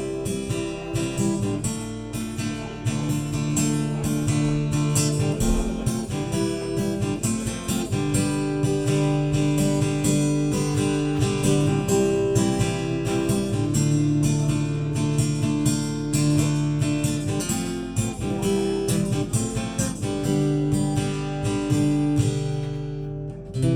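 Acoustic guitar strumming chords in a steady rhythm, the instrumental close of a song, stopping just before the end.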